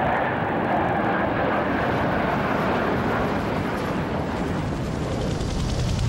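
Jet aircraft flying past: a loud, steady rushing engine noise with a whine that falls slowly in pitch, and a deeper rumble building near the end.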